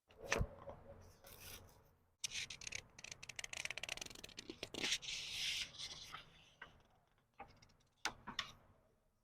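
Paper pages of a book being turned slowly by hand: a tap about half a second in, then a long crackling rustle of paper from about two seconds to about six, and a few soft ticks near the end.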